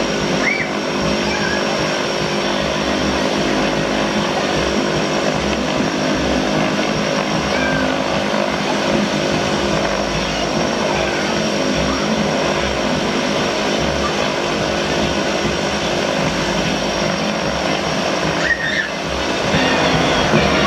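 Beechcraft King Air C90A's twin Pratt & Whitney PT6A turboprops running at taxi power: a steady propeller drone with a thin high turbine whine over it.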